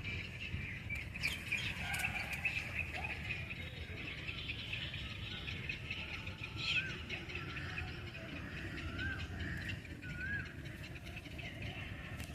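Birds chirping and calling continuously, with several short rising-and-falling whistled notes in the second half, over a steady low rumble.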